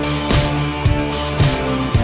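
Background music with held tones and a steady beat, a little under two beats a second.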